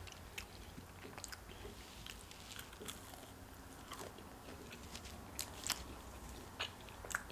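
Biting and chewing crispy breaded steak fingers: faint, with scattered sharp crunches and a few louder ones in the second half.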